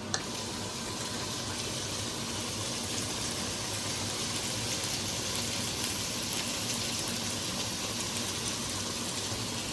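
A steady, even rushing noise with a click just after it begins; it cuts off abruptly at the end.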